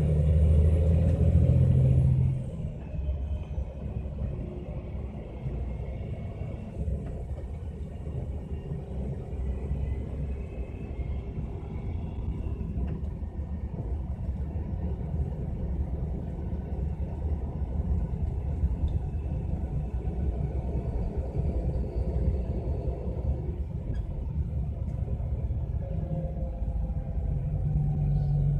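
MAN Lion's Coach driveline running with a steady low rumble and a faint shifting whine. A louder hum at the start drops away about two seconds in and builds again near the end.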